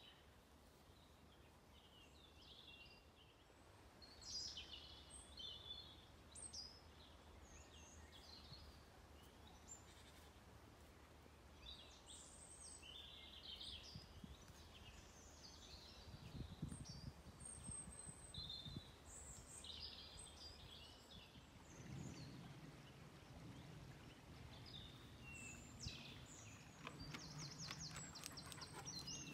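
Faint birdsong: scattered short chirps and calls of small birds over a quiet outdoor background, with a faint low rumble coming in about three-quarters of the way through.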